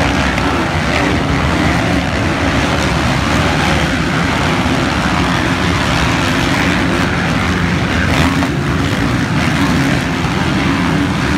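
A pack of motocross dirt bikes racing, several engines running hard together in a steady, continuous din.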